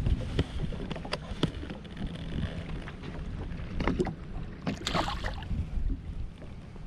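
Wind buffeting the microphone in an open fishing boat, with scattered small clicks and knocks from handling gear, and a louder brief rustle about five seconds in.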